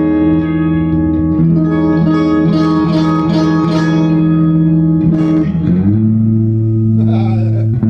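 Electric guitar played loud through a Fender Vibroverb-clone tube amp and JBL speaker, with low notes and chords ringing out with long sustain. About six seconds in it moves to a different held low note, which rings until near the end.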